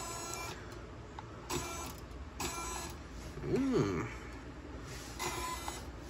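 Toy RC helicopter's small electric rotor motors whining in short surges of about half a second as the throttle is worked, the rotors spinning up and easing off several times. About three and a half seconds in there is a short sound that rises and falls in pitch.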